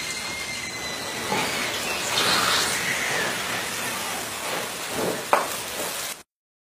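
Room fire from a burning dry Christmas tree: a steady rushing noise of flames with crackling, and a sharp pop about five seconds in. The sound cuts off suddenly just after six seconds.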